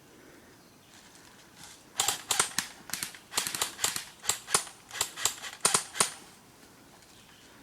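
Airsoft gun firing a quick, irregular string of about twenty sharp shots over roughly four seconds, starting about two seconds in.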